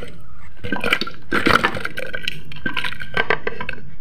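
Pieces of onion, ginger and lemongrass sliding off a plate and dropping into a blender jug, a run of irregular light knocks and clatters as they hit the jug and each other.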